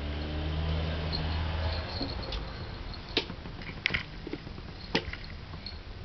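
Sharp light knocks and taps, four or five of them between about three and five seconds in, over soft rustling, as a kitten plays with a small ball against metal stool legs on a wooden floor. A low hum runs underneath and stops about two seconds in.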